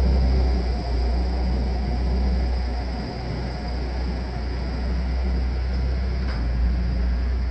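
Engine of a compact machine (skid steer or compact tractor) running steadily as it drives away up a gravel driveway, a low rumble that drops a little about a second in.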